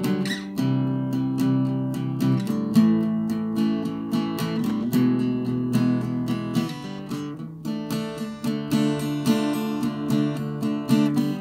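Background music played on acoustic guitar, with a steady run of strummed and plucked chords.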